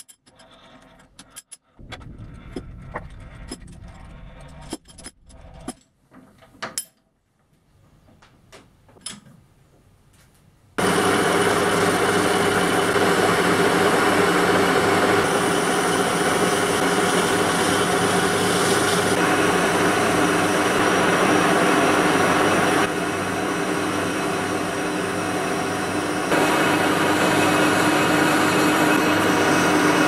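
A few scattered clicks and knocks of metal parts being handled at a three-jaw lathe chuck, then about eleven seconds in an old 1K62 engine lathe starts up suddenly and runs steadily, turning a steel roller face. The running sound drops a little for a few seconds near the end.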